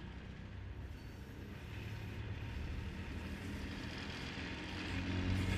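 Sangi Railway ED45 electric locomotive slowly approaching, its low hum and running noise growing steadily louder as it draws near.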